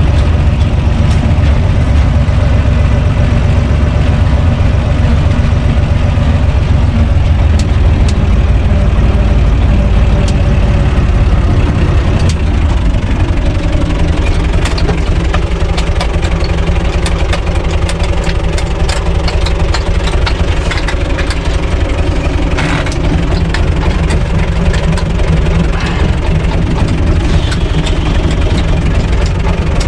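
UTB Universal 445 DT tractor's diesel engine running steadily, heard from inside the cab, with scattered light clicks and rattles. About twelve seconds in, the engine note changes and settles into a steadier hum.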